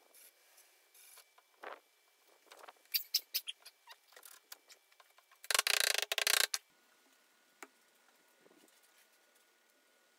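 Workbench clamping noises around a glued segmented wooden ring in a steel hose clamp: scattered light clicks and taps, a quick run of sharp clicks about three seconds in, and one loud, harsh rattle lasting about a second a little past the middle.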